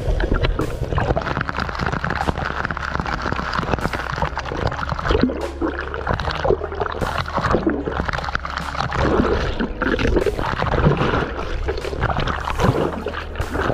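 Air bubbles gurgling underwater in irregular bursts over a steady low hum.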